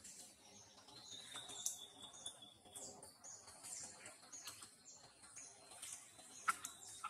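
Faint chirping of small birds, many short high chirps one after another. A thin steady high tone runs for about two seconds from a second in. Two sharp clicks come near the end.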